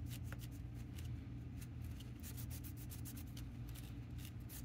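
Microfiber cloth rubbing back and forth on a plastic pinball drop target in quick repeated strokes, wiping off old sticky grease so the target will slide dry. A steady low hum runs underneath.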